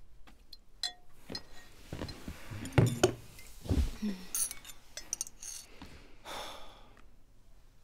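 A spoon clinking against a bowl, with scattered light taps and handling sounds of dishes; the loudest clinks come about three seconds in.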